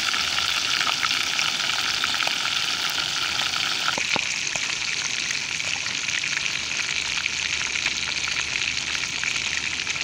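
Fish frying in hot fat in a pan over a wood fire: a steady, dense sizzle full of fine popping crackles, with a few sharper pops about four seconds in.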